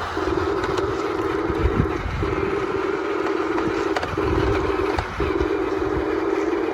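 Electric motors of a radio-controlled toy construction machine whining steadily. The motors stop for a moment and restart about 2, 4 and 5 seconds in, under a rough low rumble.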